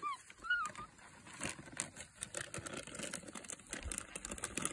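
A plastic snack bag crinkling and rustling as spider monkeys grab and pull at it. In the first second there are two short high squeaks, each rising then falling in pitch.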